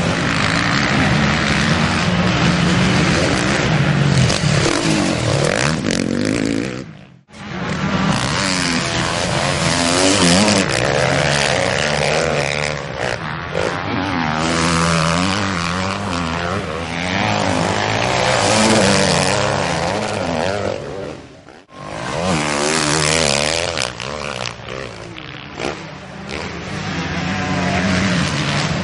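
Several motocross bikes' engines revving hard as they ride past, the pitch rising and falling with the throttle. The sound drops out abruptly twice, about seven seconds in and again about twenty-two seconds in.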